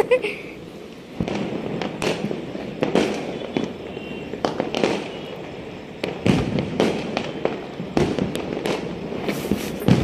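Firecrackers and aerial fireworks going off across the neighbourhood: a continual run of sharp bangs and pops at irregular intervals, near and distant, with louder bangs a little past halfway and near the end.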